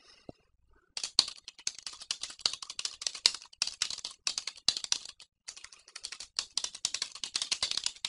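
Fast typing on a computer keyboard: a quick, uneven run of key clicks starting about a second in.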